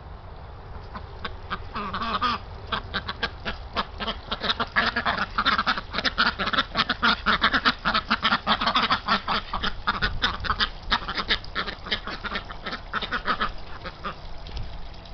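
A group of domestic ducks quacking in quick, overlapping calls. The calls start about a second in, are densest in the middle and thin out near the end, over a low wind rumble on the microphone.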